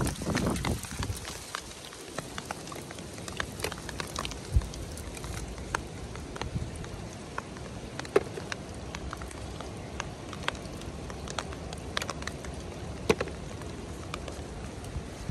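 Rain falling steadily, with scattered sharp ticks of individual drops.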